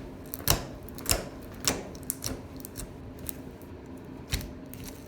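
Clear slime with foam beads being squeezed and stretched by hand, air bubbles popping in a series of sharp clicks about every half second to a second.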